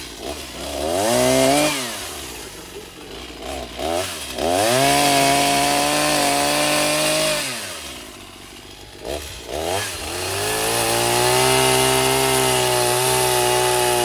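Echo chainsaw cutting through a tree trunk, revving up three times with a rising pitch, holding a steady high speed and dropping back in between: a short rev of about a second near the start, then two longer cuts of three to four seconds, the last one ending near the end.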